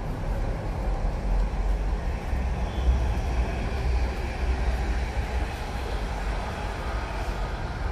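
Commuter train running: a steady low rumble with an even haze of rail noise.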